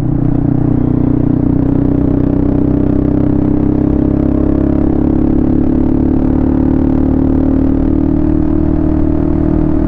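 Motorcycle engine running on the road at a steady cruise, holding a nearly constant pitch.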